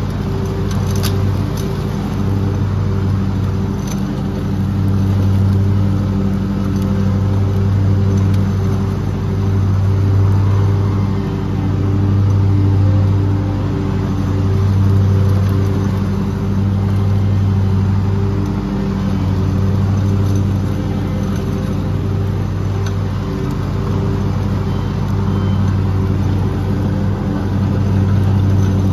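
Lawn mower engine running steadily under load while cutting grass, its level swelling and easing every few seconds.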